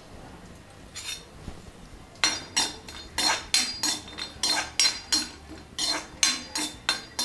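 A metal spoon scraping and clinking against a metal kadai as cashews are stirred in ghee: quiet at first, then quick repeated ringing strokes, about three a second, from about two seconds in.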